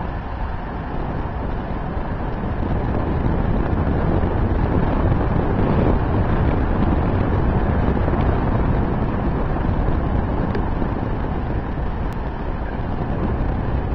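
Wind buffeting the microphone of a camera moving at speed down a road: a steady low rush, a little louder through the middle.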